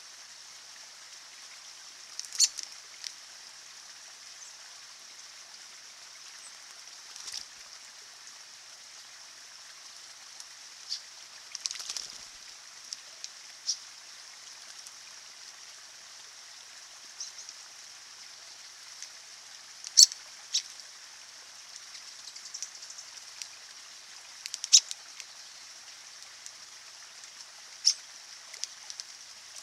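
Shallow stream trickling steadily over rocks, with short sharp splashes every few seconds from American robins bathing in the water; the loudest splashes come about two-thirds and five-sixths of the way through.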